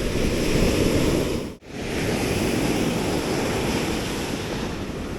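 Surf washing on a beach, with wind buffeting the microphone. The sound drops out for an instant about one and a half seconds in.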